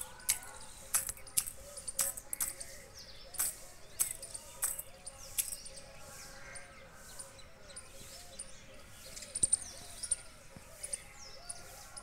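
Peacock pecking at a steel feeding bowl: sharp clicks of its beak, irregular at about two a second for the first half, then a short cluster near the end. Faint chirping of small birds underneath.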